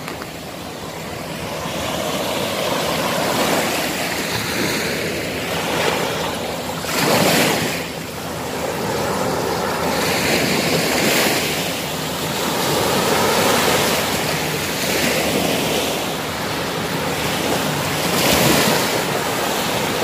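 Small sea waves breaking and washing up a sandy beach, a continuous surf wash that swells and eases. It surges louder about seven seconds in and again near the end.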